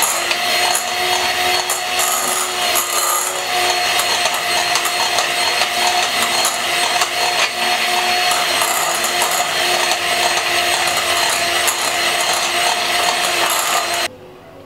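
Electric hand mixer running steadily, its beaters beating batter and clicking against a glass bowl; it cuts off suddenly near the end.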